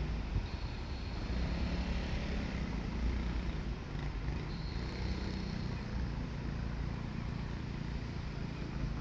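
Diesel railcar engine running with a steady low rumble.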